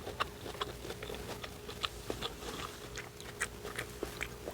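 A baby tomato being chewed close to the microphone: irregular short mouth clicks, a few each second.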